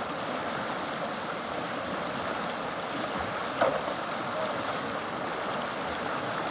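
Steady rush of whitewater in a river rapid, with a brief, sharper louder sound a little past the middle.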